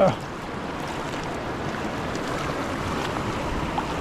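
Steady rush of a mountain trout stream's flowing water.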